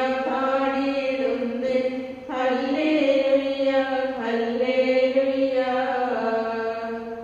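Liturgical chant of the Syro-Malabar Mass: a voice singing in long held notes that step up and down in pitch, pausing briefly for breath about two and four seconds in.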